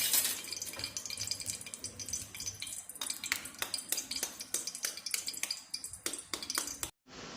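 Kitchen utensils and dishes clinking and tapping in many quick, irregular clicks. They stop suddenly near the end.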